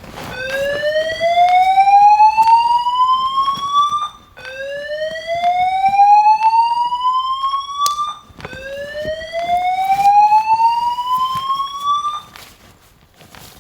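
Building fire alarm sounding the slow-whoop evacuation tone of its voice-evacuation system: three rising sweeps, each about four seconds long, climbing from a low to a higher pitch.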